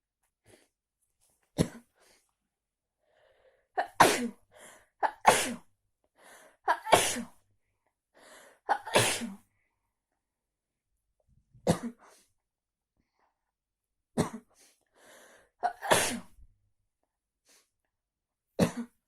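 A person sneezing again and again: about nine sharp sneezes a few seconds apart, with softer breaths between them. The uploader puts the sneezing down to getting cold in the rain.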